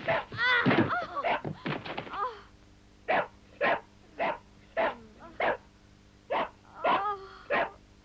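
A dog's wavering, yelping cries, then a string of about eight short barks, roughly two a second.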